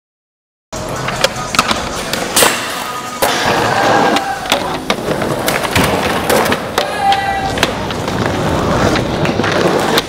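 Skateboards being ridden: wheels rolling on concrete, with repeated sharp clacks and snaps of the boards popping, grinding and landing. It starts suddenly about a second in.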